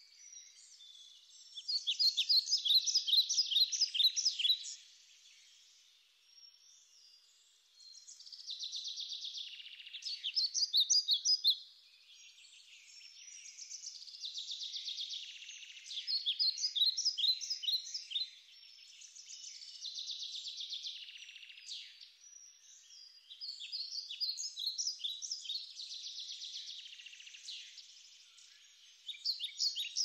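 Small songbirds singing: loud phrases of rapid repeated notes come every several seconds, over a fainter continuous high twittering.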